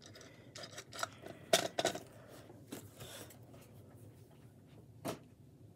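Boxed action-figure packaging being handled: a few light knocks and rustles of cardboard and plastic. The loudest comes about a second and a half in, another near the end.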